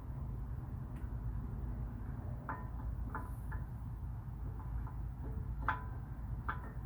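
Light metallic clicks and clinks, about seven of them, each with a short ring: a brake pad's steel backing plate knocking against the caliper as it is slid into its slots. A steady low rumble lies underneath.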